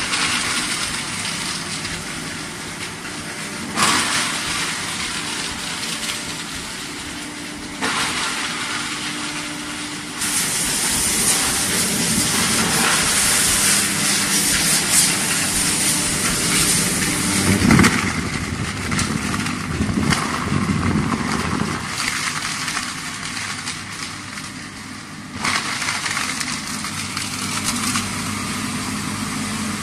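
Foam shredder running: a steady motor hum under a loud rushing noise. The noise grows louder for several seconds in the middle as foam is fed into the hopper and cut.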